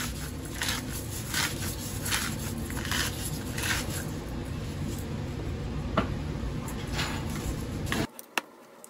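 Red silicone spatula stirring and scraping soft, sticky yeast dough in a bowl, in repeated wet squishy strokes. It stops abruptly about eight seconds in, leaving only a few faint clicks.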